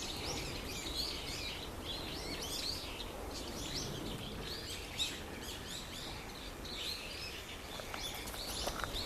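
A flock of about ten brown-eared bulbuls calling together: many short, high calls overlapping, several a second without a break. The uploader takes this calling for an earthquake warning.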